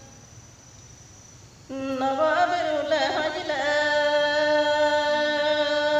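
A woman singing a traditional Galo song unaccompanied. After a pause of about a second and a half, she starts a new phrase with a wavering, ornamented opening, then holds one long steady note.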